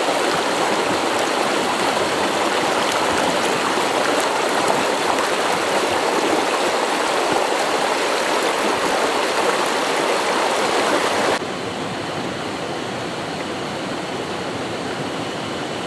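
River water flowing and rushing steadily. About eleven seconds in it drops suddenly to a quieter, duller rush.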